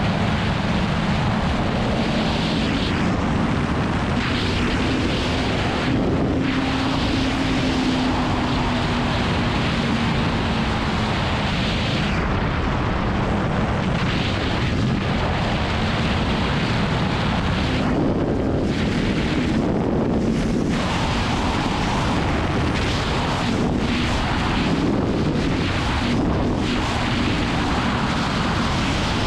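Wind noise rushing over the camera microphone of a sport motorcycle at road speed, with the bike's engine running underneath at a fairly steady pitch. The rush thins briefly a few times.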